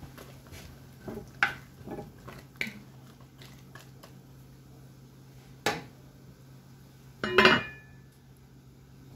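A wooden spatula knocking against a cast iron pot in a few short taps while stirring vegetables, then a sharp knock, and near the end a louder clank with a brief ring as the cast iron lid is set on the pot.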